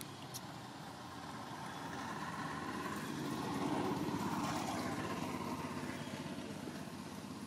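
A motor vehicle's engine running as it passes by, growing louder to its peak about four seconds in and then fading away.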